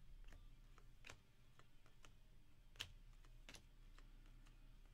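Faint, scattered clicks and ticks of glossy Panini Prizm trading cards being slid and flipped through by hand, the sharpest click coming a little under three seconds in.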